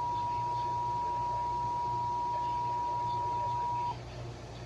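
Weather radio alert tone: a steady, pure high tone that cuts off suddenly about four seconds in, leaving faint radio hiss and hum.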